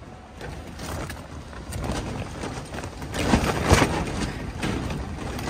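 Gusty wind buffeting the microphone, with irregular rustling and small knocks; it swells to its loudest a little past halfway.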